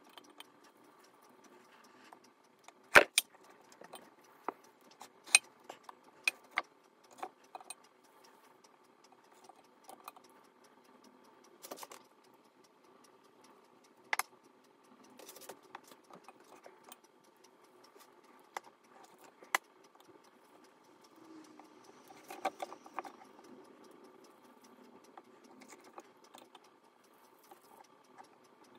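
Scattered light clicks and taps of a plastic spoon and fingers against a stainless steel pot as sticky sesame-seed mixture is scooped and rolled into balls by hand, at irregular intervals with the sharpest tap about three seconds in.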